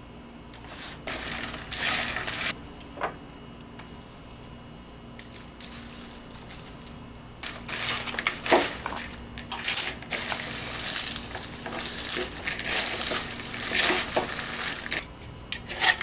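Popped popcorn rustling and crunching as hands toss and stir it in a plastic bowl to mix in seasoning, in irregular bursts: a short spell about a second in, then nearly continuous through most of the second half.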